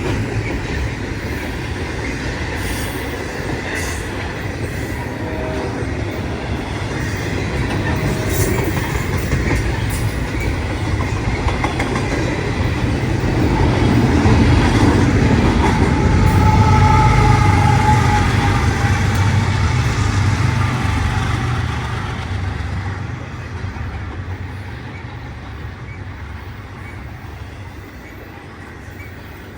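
A train passing on the tracks, a steady rumble with rail clatter that swells to its loudest about halfway through and then fades away.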